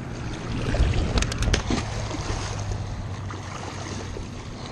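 Water sloshing and splashing at the river's edge as a flathead catfish is let go, with a quick run of four sharp clicks a little over a second in and wind on the microphone.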